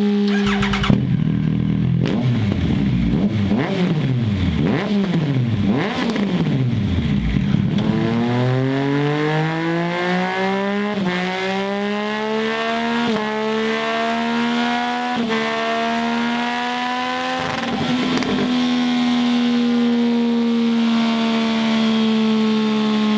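Triumph Speed Triple 1050's inline three-cylinder engine revving through a Scorpion slip-on exhaust on a dynamometer. Quick throttle blips rise and fall for the first several seconds, then a long climb in pitch broken by three short drops, and the engine holds a steady note over the last few seconds.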